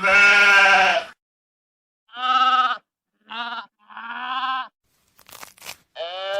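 Sheep bleating: five separate bleats with a quavering pitch, the first the longest and loudest. Just before the last bleat there are a few brief rustling noises.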